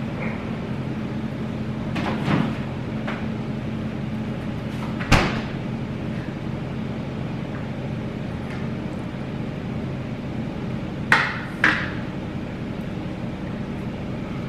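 A few sharp knocks over a steady low hum: one about two seconds in, a louder one about five seconds in, and a quick pair near the end.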